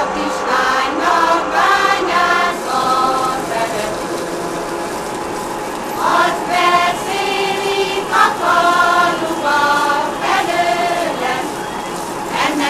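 A choir singing a Hungarian folk song in two sung phrases, with a lull of held tones between them about four seconds in.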